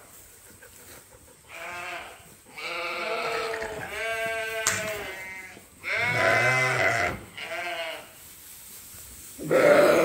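Lambs bleating at feeding time: about five wavering bleats in a row, the loudest about two-thirds of the way through, as they call for hay.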